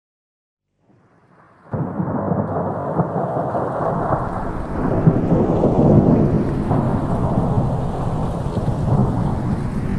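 Wind buffeting and helicopter noise picked up by a GoPro mounted on a helicopter in flight: a steady, muffled rumbling roar. It fades in about a second in and is at full level from near two seconds in.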